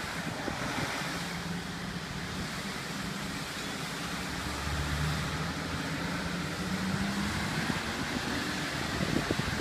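Water jetting from a broken fire hydrant with a steady hiss, mixed with passing road traffic. A vehicle engine hums underneath, loudest about five seconds in.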